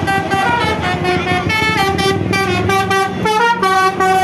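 Basuri 'telolet' multi-tone air horn on a passing vehicle playing a quick tune of short stepped notes, with the vehicle's engine rumbling beneath.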